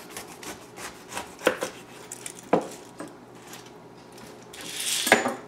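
Chef's knife sawing through the tough top of a whole pineapple on a wooden cutting board, a series of sharp crunching cuts. Near the end a rustle and a single loud knock as the leafy crown goes into the stainless steel sink.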